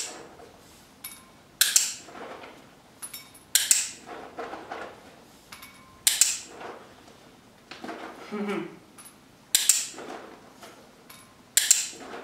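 Dog-training clicker clicked about six times, roughly every two seconds, each a single sharp click. Softer handling sounds come between the clicks as treats are taken from a pouch and dropped into a bowl.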